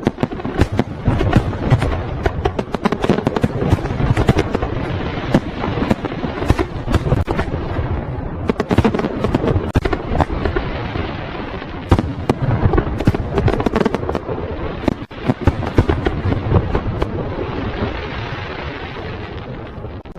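Fireworks going off: a dense run of bangs and crackles over a continuous rumble, easing off near the end.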